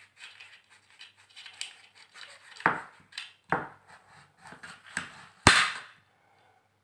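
Kitchen knife cutting a guava into small pieces on a ceramic plate: a string of sharp knocks and clicks as the blade goes through the firm fruit and meets the plate, the loudest about five and a half seconds in.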